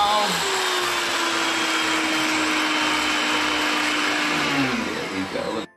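Handheld electric mixer running steadily in a bowl of dough, a motor whine over a noisy hum; near the end the whine falls in pitch as the motor slows down.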